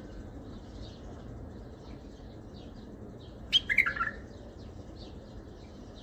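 Bulbul song: about three and a half seconds in, a loud, short phrase of several quick notes that fall in pitch, over a faint, steady scatter of high chirps.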